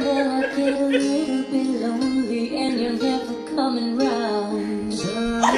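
A song playing, a sung melody moving in steps between held notes: the song these dogs take as the cue for treat time.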